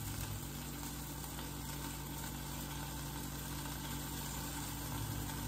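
Sliced okra sizzling steadily as it fries in oil in a pan, over a low steady hum.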